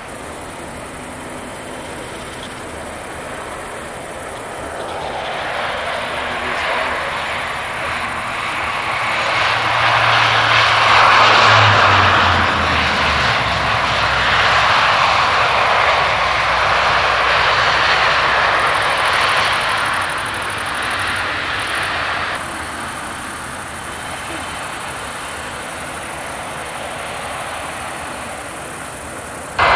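Airliner engines at takeoff power: a rushing roar swells over several seconds to a loud peak through the middle, then eases back to a quieter steady rumble. Partway in, the low hum of a Dash 8 Q400 turboprop's propellers drops in pitch as it passes.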